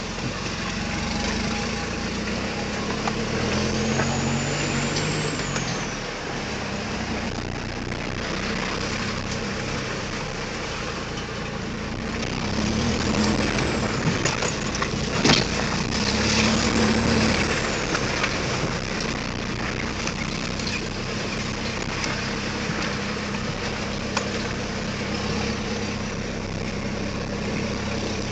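4x4 pickup's engine running in a low gear, heard from inside the cab, its note rising and falling with the throttle, over steady rumble and rattle from driving along a rough, muddy track, with a few sharp knocks from bumps.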